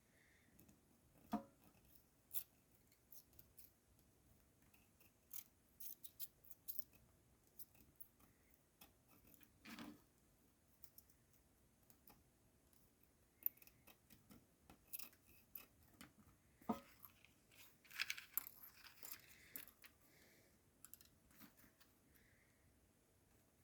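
Faint, scattered clicks and light taps of small tools being handled during soldering work, with a brief scratchy rustle late on.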